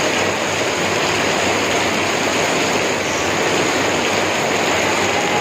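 Heavy rain pouring down steadily, a dense even hiss with no let-up.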